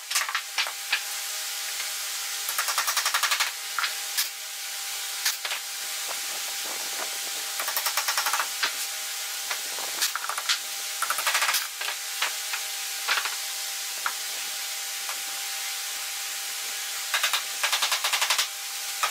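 Wooden mallet tapping rapidly on a wooden cabinet panel, in several quick flurries of strikes lasting a second or less, with single knocks in between.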